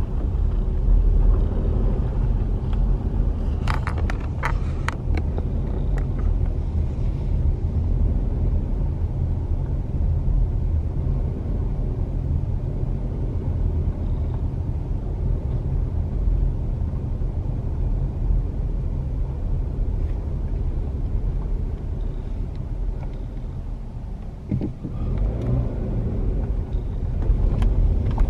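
Car driving slowly, a steady low rumble of engine and tyres heard from inside the cabin, with a few sharp clicks about four seconds in.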